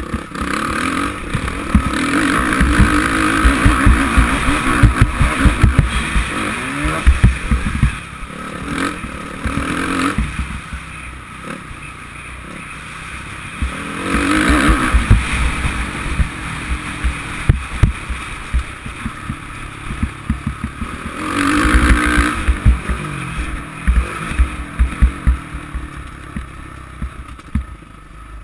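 Suzuki RM-Z450 four-stroke single-cylinder motocross engine, heard from a helmet camera, surging loud under throttle three times, about a second in, around the middle and about three quarters of the way through, with quieter off-throttle stretches between. Many irregular low thumps run through it.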